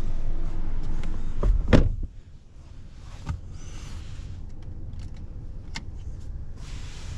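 Rear door of a Citroën C4 shutting with one heavy thud about two seconds in, cutting off the steady outdoor rumble. The cabin is then much quieter, with a few light clicks and rustles as a hand touches the rear seat and trim.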